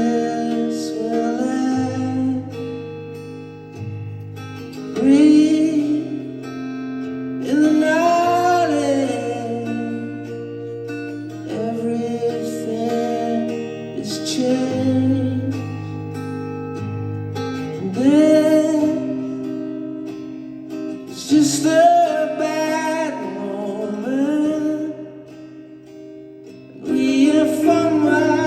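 A live band song: a singer's long, wavering sung phrases over acoustic guitar and sustained low bass notes.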